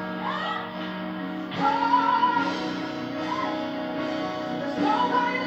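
Worship music: a woman singing long held notes over a steady instrumental backing.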